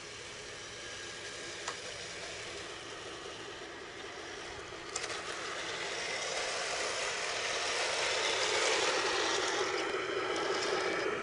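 1:16 scale radio-controlled M41A3 Bulldog tank running: a steady mechanical noise that grows louder, with a sharp click a couple of seconds in and a knock about five seconds in.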